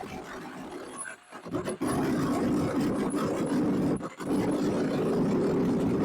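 Ryobi electric chainsaw cutting through the side of a boat hull. It is quieter for the first second or so, then cuts steadily from about two seconds in, with a brief break just after four seconds.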